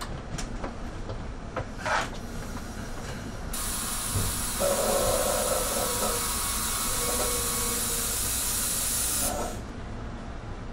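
Commuter train stopping at a station: a brief squeak about two seconds in, then a loud hiss of compressed air from the train's pneumatic system for about six seconds, cutting off suddenly, over a low rumble.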